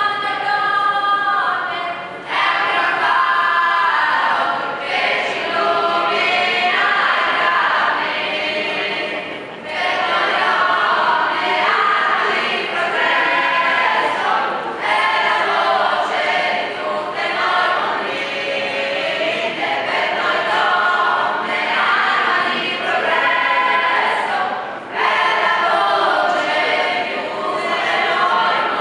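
A choir singing, in sustained phrases a few seconds long with short breaks between them.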